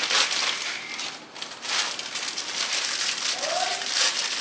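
A plastic zip-top gallon bag and paper-wrapped sleeves of saltine crackers crinkling and rustling as they are handled, with a short lull about a second in.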